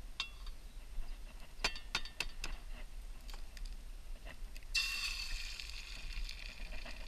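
A few light clinks of camp cookware, then a steady sizzling hiss starts suddenly about five seconds in and keeps going.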